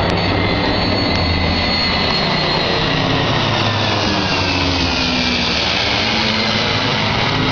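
Aircraft formation of a jet fighter flying with propeller-driven fighters, passing low overhead. A loud, steady jet roar is mixed with engine drone, and a whine slowly falls in pitch as the formation goes by.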